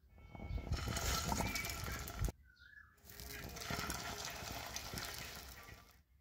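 Egg-coated kabab patties sizzling and crackling in hot oil in a frying pan. The sizzle cuts off sharply about two seconds in and starts again a moment later.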